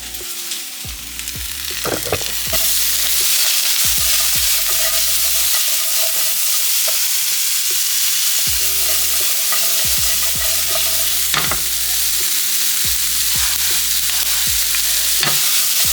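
Vegetables and onion chunks sizzling in hot olive oil in a pan as they are stir-fried, with scattered knocks of the stirring utensil against the pan. The sizzle grows louder a couple of seconds in and then holds steady.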